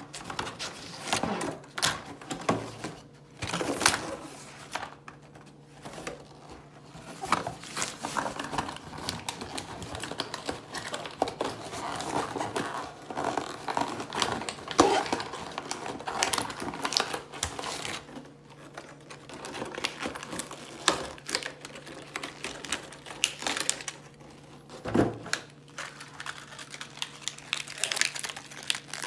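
Toy packaging being handled and opened by hand: irregular clicks, taps and crinkling, over a faint steady hum.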